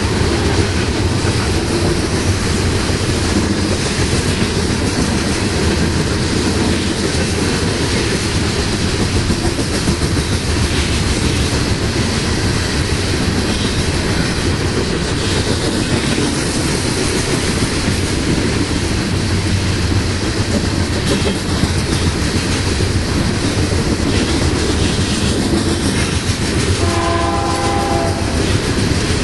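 Coal train hopper cars rolling past close by: the steady running noise of steel wheels on the rails. Near the end a locomotive horn sounds briefly, a chord of several tones.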